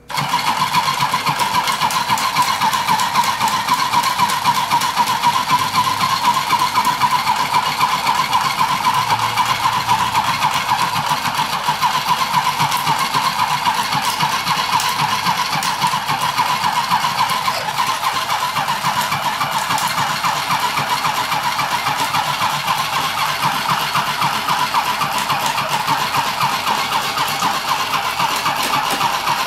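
Handheld mini sewing machine running steadily, its small motor whirring with the rapid clatter of the needle as it stitches Velcro onto bug netting.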